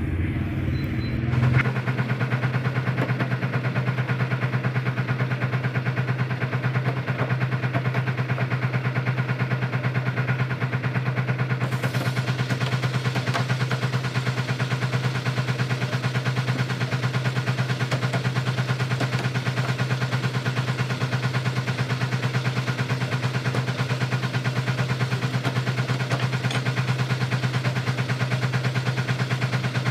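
Motor of a meat-grinding machine running steadily: a low hum with a fast, even pulse. A higher hiss joins about twelve seconds in.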